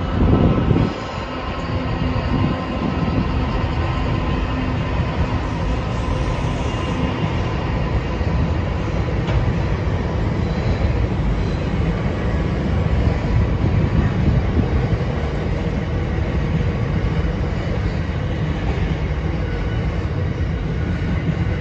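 Freight train passing: the last of its NR-class diesel-electric locomotives goes by with a brief loud swell about half a second in, and its engine note fades over the next several seconds. Then comes the steady rolling rumble of container wagons going past.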